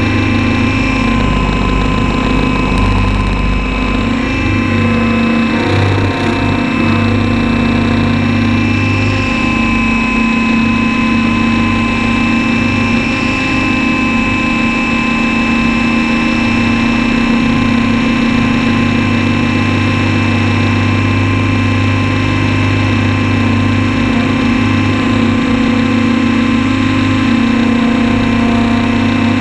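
Radio-controlled model helicopter's motor and rotor running steadily, picked up close by its onboard camera, the pitch shifting slightly now and then.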